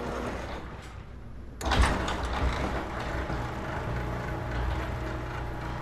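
Garage door opener starting up about a second and a half in and running steadily as it drives the door. This is a test run after its force setting has been readjusted for the door's new springs.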